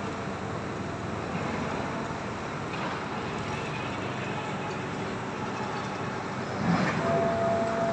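Steady mechanical rumble and hum of sugar-mill machinery running. A thin steady whine sets in near the end.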